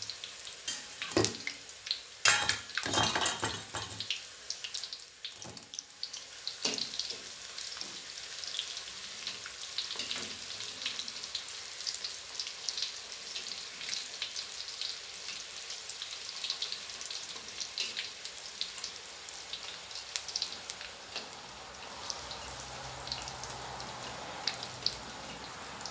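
Fish-tofu wontons deep-frying in hot oil in a steel wok: a steady crackling sizzle with many small pops. A few louder clatters come in the first few seconds.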